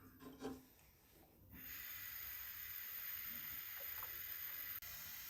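Steady hiss of a pot of orange juice and sugar syrup cooking on the stove, starting about a second and a half in after a quieter moment.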